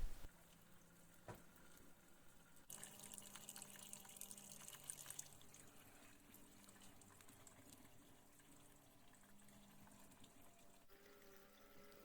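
Faint trickle of coolant draining out of the radiator drain valve.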